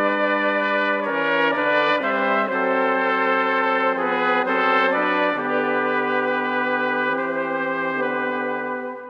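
Brass ensemble of trumpet, French horn, trombone and tuba playing a Congregação Cristã no Brasil hymn in slow, sustained harmony, the chord changing every second or so. The phrase closes and the sound drops away near the end.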